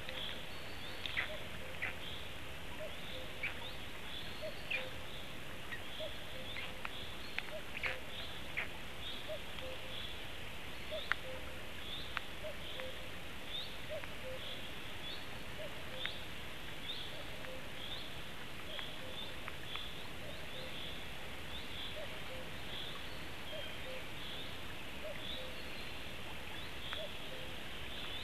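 A bird gives short high chirps over and over, roughly one or two a second, over a steady background hiss.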